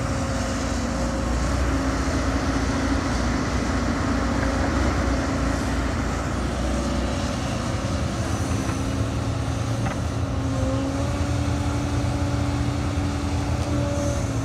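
Hidromek HMK 230LC crawler excavator's diesel engine running steadily under digging load, with a tone that shifts a little in pitch as the boom and bucket dig and swing.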